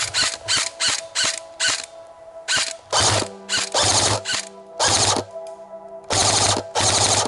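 Scoped airsoft electric rifle, a G&G CM16 Raider, firing: rapid single shots about four a second for the first two seconds, then five full-auto bursts, the last and longest running over a second near the end.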